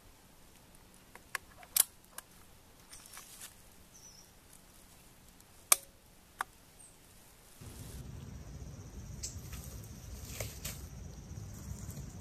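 Scattered sharp clicks and ticks, two of them loud, with faint patter between them; about two-thirds of the way in, a steadier low background noise takes over with a few more small clicks.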